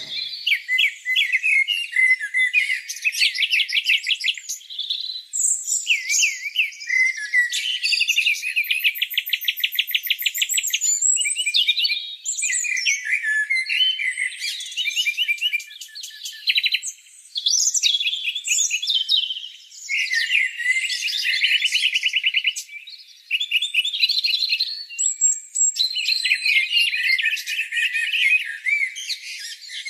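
Songbirds chirping, trilling and whistling in quick, varied phrases. Several calls overlap, all high-pitched with no low sound beneath them.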